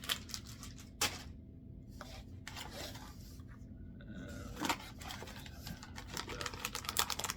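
Plastic bait packages crinkling and rustling as they are handled, in short scattered bursts that come thicker and faster near the end.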